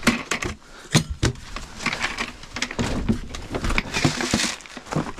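Cat feeders being topped off with dry cat food: rattling pours of kibble mixed with repeated sharp knocks and clatter of the feeders and lids being handled.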